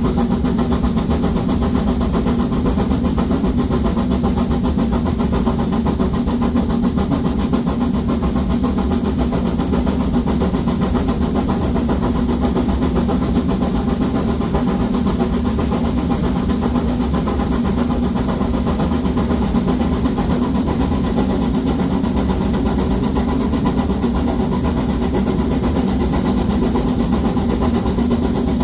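Narrow-gauge steam locomotive 99 7240-7, a 2-10-2 tank engine, working its train uphill: a loud, steady running noise with no pauses or distinct single events.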